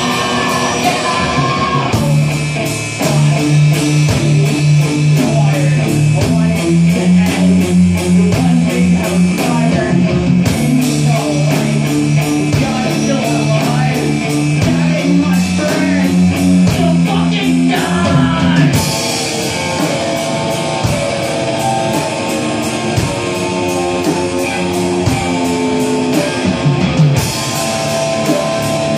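Rock band playing live: electric guitar over a drum kit, sustained low notes under steady drum and cymbal hits. About two-thirds of the way through, the music moves into a new section with brighter cymbals.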